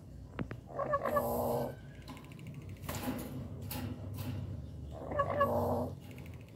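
Black-capped lory giving two harsh, buzzing calls, each about a second long, one about a second in and another about five seconds in.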